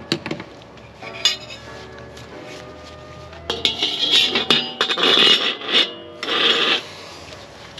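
Metal ladle and spatula clinking and scraping against the inside of a steel wok: a couple of single clinks early, then a dense run of scraping and clatter for about three seconds midway.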